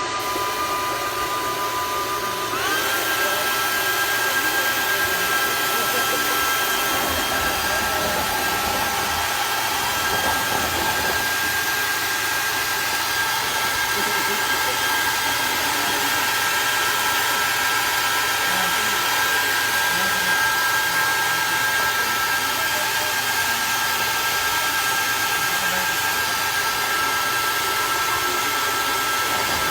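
Small electric motor of a remote-control sprayer truck running with a steady whine over a strong rushing hiss; the whine steps up in pitch about two and a half seconds in and then holds.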